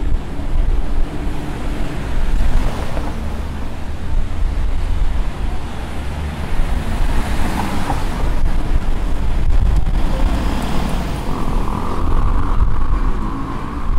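Street ambience dominated by wind buffeting the microphone, with traffic noise underneath.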